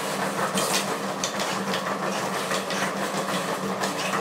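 Dog treadmill running with a steady hum, and a French bulldog's paws tapping on the moving belt, a few soft taps a second.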